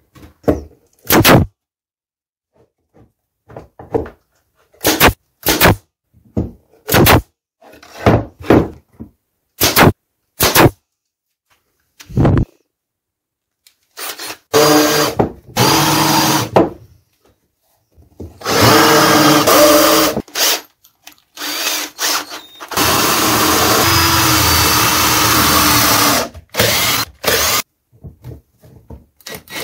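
Short sharp knocks of wooden parts being handled, then a cordless drill with a countersink bit boring into plywood in several bursts of a few seconds each, including one longer run whose pitch drops part way through. Near the end, short bursts of a cordless driver driving wood screws.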